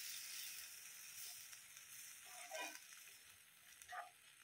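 Faint sizzle of milk and grated bottle gourd in a hot nonstick kadhai, slowly dying down, with two soft spatula scrapes about halfway through and near the end as the mixture is stirred.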